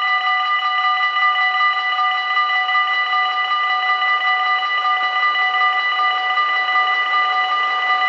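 The two warning bells of a Dutch mini-AHOB level crossing ring loudly and steadily, a fast-repeating ring at several fixed pitches. They sound while the barriers are down, warning that a train is approaching.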